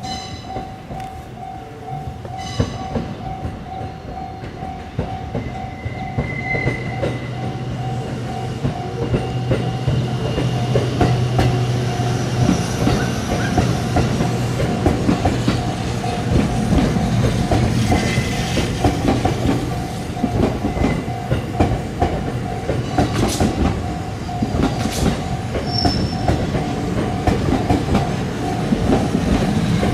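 Japanese level-crossing warning bell ringing in a steady pulsing rhythm. A train passes over the crossing from about a quarter of the way in, its wheels clattering over the rail joints as it gets louder.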